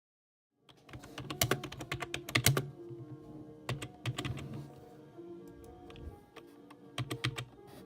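Typing on a computer keyboard: a fast run of key clicks and clacks starting just under a second in, heaviest in the first couple of seconds, then sparser presses. Background music plays underneath.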